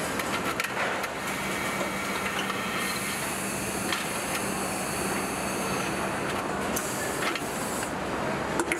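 Truck assembly-line factory noise: a steady hum of machinery with scattered sharp metallic clicks and clanks, and a hiss for a few seconds in the middle.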